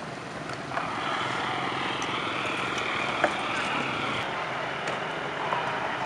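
A motor vehicle running close by, a steady mechanical noise that gets louder about a second in, with indistinct voices in the background.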